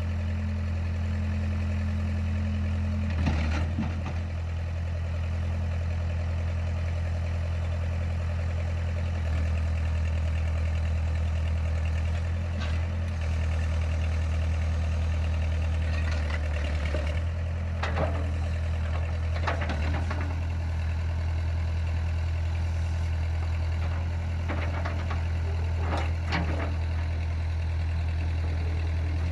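Four-cylinder diesel engine of a 1977 Case 580C-CK loader backhoe running steadily, with a few short louder noises at intervals as the machine works.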